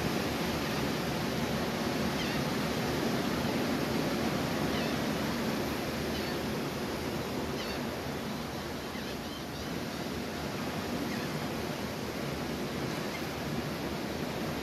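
Ocean surf breaking and washing up the beach: a steady rush of noise that swells and eases gently.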